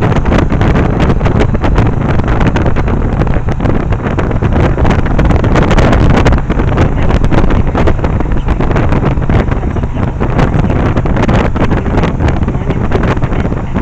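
Heavy wind buffeting on the microphone while riding a Yamaha 1100 motorcycle, with the engine running underneath. The noise is loud and steady, with constant irregular gusts.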